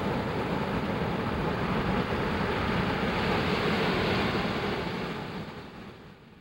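Steady rushing noise that fades away over the last two seconds.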